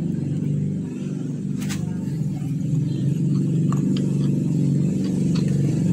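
An engine running steadily at an even speed, with a few light metallic clicks on top.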